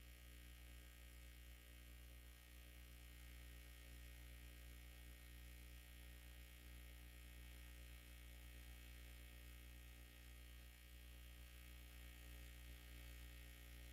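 Near silence: a faint, steady electrical hum under the room tone.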